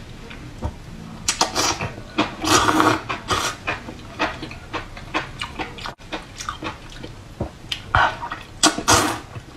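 Close-miked eating of enoki mushrooms in sauce: wet chewing and lip smacks, with louder slurps of the mushroom strands about two and a half seconds in and again near the end.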